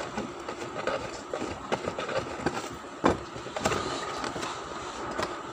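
A cardboard box and a plastic toy car being handled as the car is slid out of the box: scraping and rustling with scattered light clicks and knocks, the sharpest knock about three seconds in.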